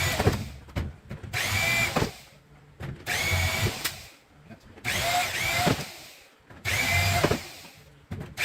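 Power drill driving a wire stripper, spinning up in five short bursts of about a second each as lengths of insulated copper wire are run through, with a whine that shifts in pitch under load.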